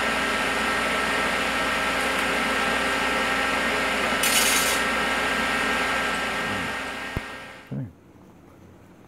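Everlast PowerPro 205s TIG welder running with a steady hum right after an aluminum weld, with a short hiss about four seconds in. The hum fades near the end and gives way to a quiet room.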